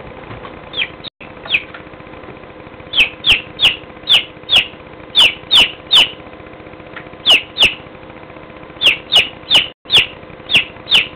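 Domestic chicken chick peeping: short, loud peeps, each falling in pitch, coming in quick runs of two or three with brief pauses, after a few quieter seconds.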